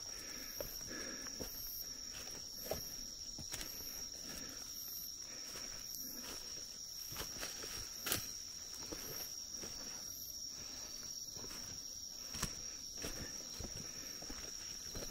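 Night insects singing in woodland: one insect's continuous high trill, with another's shorter, higher chirps repeating at an even beat. Footsteps on the forest floor run underneath, with a few sharper snaps.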